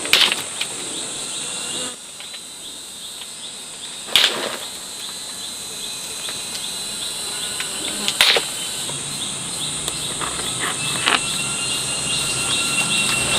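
Insects chirping in a steady, high-pitched drone, with a regular faster chirp running alongside. A few sharp knocks stand out, the loudest at the start and then about every four seconds.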